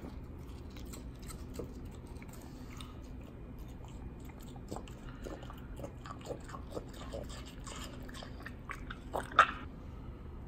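French bulldog chewing watermelon, a run of small crunching bites, with a couple of sharper, louder clicks near the end.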